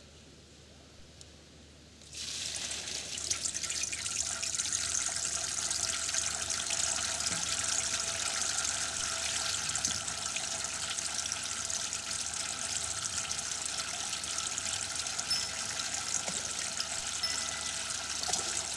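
Water falling in a steady splashing stream from a raised tank into a clear tank below, starting suddenly about two seconds in after a quiet opening; it is the water sound that opens a water-music stage act.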